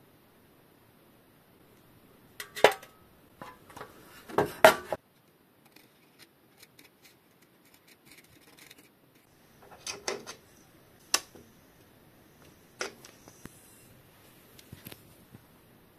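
Loose steel bearing balls from a Shimano HB-TX505 bicycle front hub clinking as they are picked out of the hub: a few sharp metallic clinks in small clusters, with quieter ticks and taps between.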